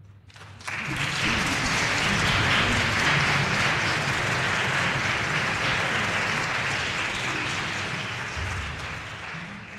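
Concert audience applauding, the clapping breaking out suddenly about half a second in and slowly dying away near the end.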